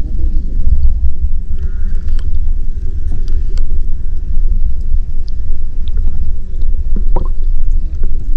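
Muffled low rumble of water moving around a GoPro's waterproof housing while it is held underwater, with a few faint clicks scattered through it.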